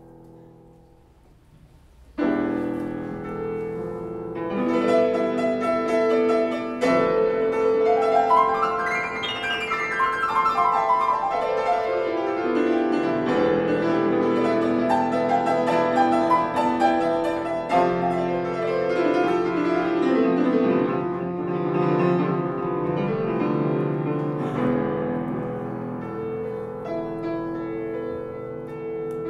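Grand piano playing, starting suddenly about two seconds in, with a quick run up the keyboard and back down partway through.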